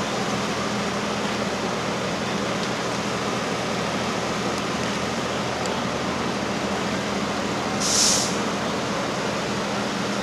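Locomotive engine running steadily with a low hum, and a short hiss about eight seconds in.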